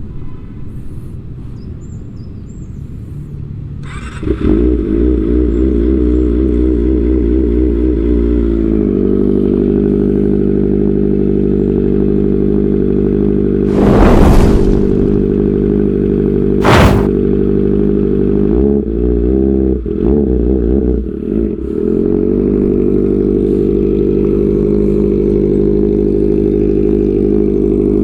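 Kawasaki ZX-25R's 249 cc inline-four, through an Arrow aftermarket exhaust, starting about four seconds in. It settles from a wavering fast idle into a steady idle. Midway there are two sharp loud bursts and a short spell of uneven revving before the engine returns to the steady idle.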